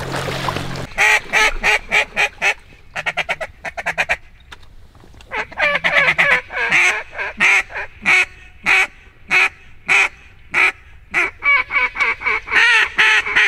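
Waterfowl calling: a long series of short goose-like honks and quacks, repeated in quick bursts, with a fast run of short notes about three seconds in.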